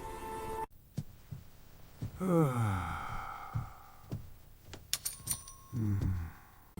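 Background music cuts off under a second in, followed by scattered knocks and clicks and a voice giving a long falling sigh, then a second shorter falling sound near the end.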